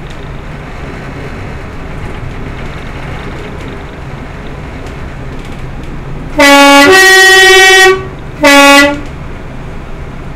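Two-tone horn of a Class 122 'Bubble Car' diesel railcar sounded while the train runs. A short low note goes straight into a longer high note, then after a brief gap comes one more short low note. All three are much louder than the steady running rumble underneath.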